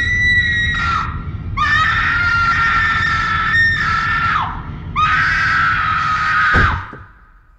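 Long, high-pitched screaming from a horror film soundtrack: three held cries, each bending down at its end, over a steady low rumble. The last cry drops sharply in pitch and cuts off near the end.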